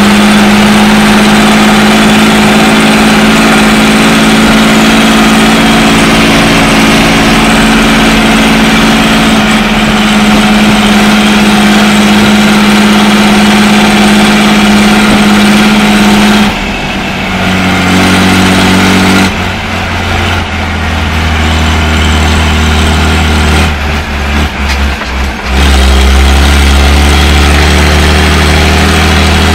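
Fendt 311 LSA Turbomatik tractor's diesel engine running steadily while the tractor drives along. About halfway through the engine speed drops and the sound turns to a deeper drone that wavers and dips in loudness for a few seconds before settling steady again.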